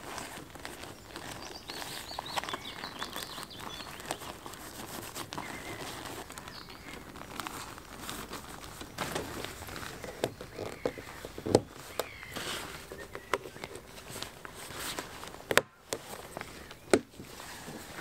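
Rustling and crackling of the floating hide's silver-lined tent fabric as it is handled and fitted onto the hide's frame, with several sharp clicks and knocks scattered through, the loudest about halfway and near the end.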